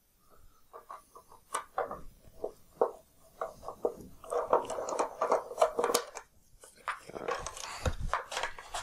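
Plastic drive-chain cover of a planer being unfastened and lifted off: an irregular run of small clicks, taps and scrapes of hands, a small hex key and screws on the cover, with a duller knock near the end.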